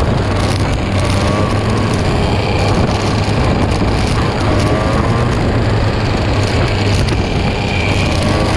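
Two-stroke kart engines racing at full throttle, heard from on board one kart, with other karts close ahead. The engine note rises and falls with the throttle through the corner.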